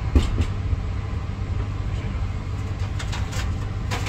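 Steady low rumble of a passenger train running, heard inside its compartment. A knock comes just after the start, and a few sharp clicks near the end as the sliding compartment door is handled.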